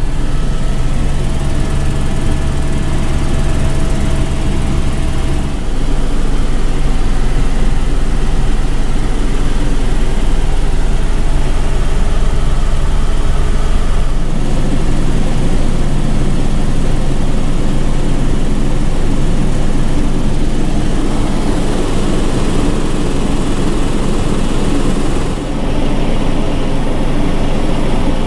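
Eurocopter AS350 B2 Écureuil helicopter heard from inside the cabin: the steady, loud drone of its turbine engine and main rotor running at flight power. The tone shifts slightly about five seconds in and again about fourteen seconds in.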